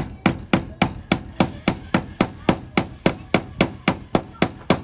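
16 oz hammer tapping the nail of a plastic cable clip into a wooden beam: quick, even strikes, about four a second.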